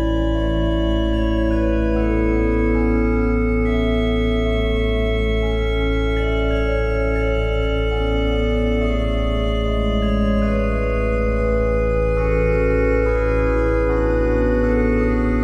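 Background music: slow, sustained organ-like chords over a steady low drone, the notes changing every second or two.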